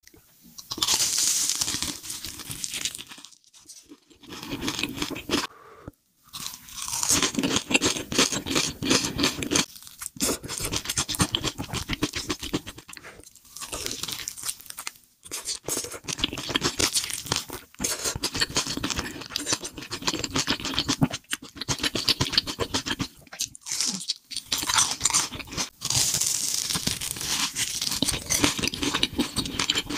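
Crunching bites and chewing of a fried corn dog coated in crisp red crumbs, in bursts of a few seconds with short pauses between.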